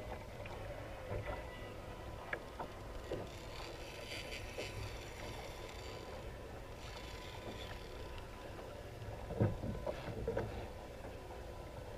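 Water lapping against a fishing kayak's hull at sea, with wind rumbling on the microphone and a faint steady hum. Several light knocks of gear being handled, the loudest about nine and a half seconds in.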